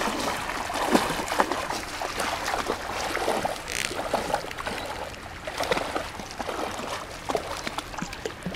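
Lake water sloshing and splashing around a person's legs as she wades through the shallows, in irregular splashes step by step, growing fainter towards the end.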